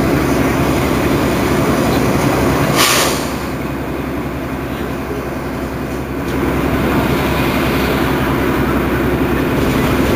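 Mercedes-Benz Citaro city bus engine idling steadily at a standstill. A short, sharp hiss of released air comes about three seconds in. After it the idle drops to a quieter level for about three seconds, then comes back up.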